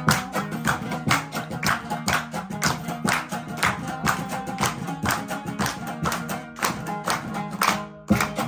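Hazara dambura, a long-necked two-string lute, strummed in a lively folk rhythm, with a group clapping along in steady time, about two to three claps a second. There is a short break near the end.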